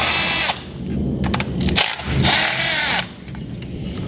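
Cordless power tool with a socket extension running in two short bursts, a whining motor spinning out the 10 mm bolts of an alternator support bracket.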